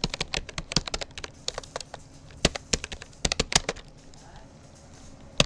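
Rapoo computer keyboard being typed on in uneven bursts of keystroke clicks, with a pause of about a second and a half near the end before typing resumes.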